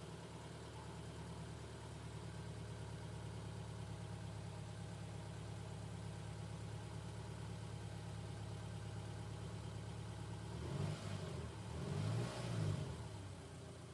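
Subaru engine idling steadily through its exhaust, then revved briefly twice near the end.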